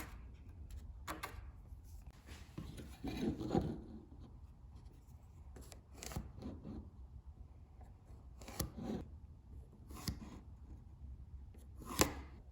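Hand work on a piece of plywood: scattered light clicks and knocks, with a rubbing scrape about two to four seconds in and a sharp click near the end.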